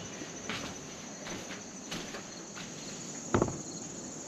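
A steady, high-pitched chorus of insects in the trees, with footsteps along a forest trail about once or twice a second. One step, a little past three seconds in, is louder than the rest.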